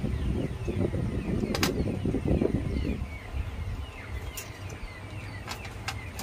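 Eating oysters at a table: a rough crackling rustle for the first three seconds, then a few sharp clicks of spoons and oyster shells on plates. Small birds chirp steadily in the background.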